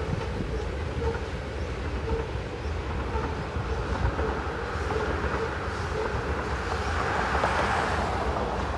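Freight train of tank cars rolling over a concrete railroad bridge: a steady low rumble of wheels on rail, with short repeated clicks from the wheels. A swell of rushing noise comes near the end.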